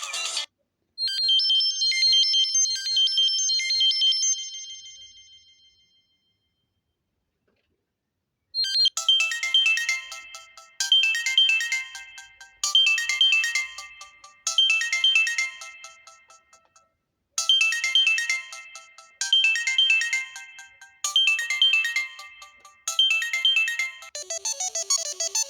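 Samsung Galaxy Grand Core ringtones played one after another. First comes a short high melodic tone that rings out and fades away. After a pause, another ringtone repeats the same short melodic phrase about every two seconds, eight times over, and a different tone begins near the end.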